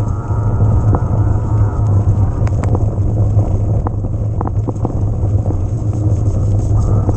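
Wind buffeting the microphone and rough-ground rumble from an electric mountain bike riding, a steady low roar with scattered sharp clicks and rattles, most of them in the middle of the ride stretch.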